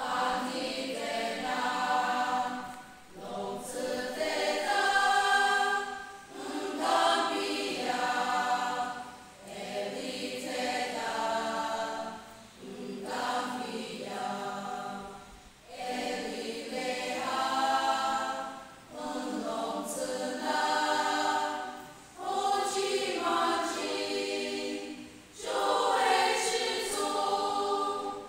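A women's choir singing unaccompanied, in phrases of two to three seconds with short breaths between.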